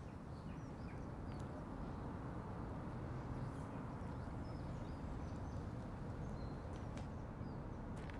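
Outdoor ambience: a steady low wind rumble with faint, scattered bird chirps.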